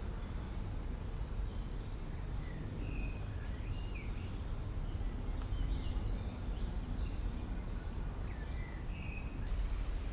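Small woodland birds chirping and whistling, short high notes scattered throughout, over a steady low rumble.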